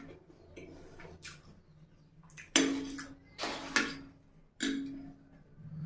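Metal fork clinking and scraping against a plate three times in the second half, each knock leaving a brief ring.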